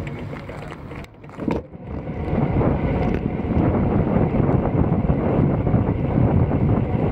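Wind buffeting the microphone of a bicycle-mounted camera during a road ride, a steady rushing noise that starts after a brief drop in level about a second and a half in.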